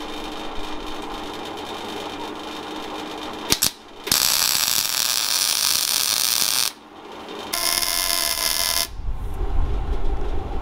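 Wire-feed (MIG) welder laying down tack welds on steel: a few seconds of steady hum, then a loud crackling, hissing arc for about two and a half seconds, a brief stop, and a second shorter burst of arc.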